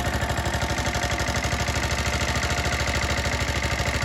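Small engine of a walk-behind tiller running steadily with an even, rapid chug while working the garden soil.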